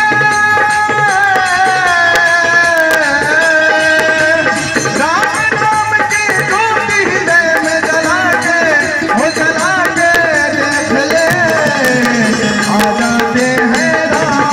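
Live Bhojpuri devotional song (bhajan) through a PA system: a male voice sings long, wavering held notes over keyboard and tabla accompaniment.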